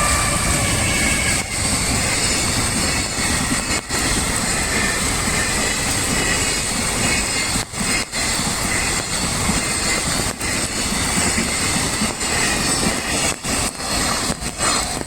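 Train passing at speed: a loud steady rush of wheels and air, with brief dips in level now and then.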